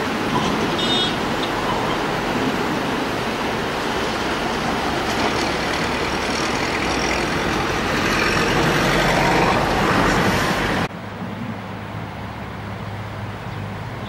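Whitewater river rapids rushing, a loud steady noise of churning water. About eleven seconds in it cuts suddenly to a quieter rush of rapids.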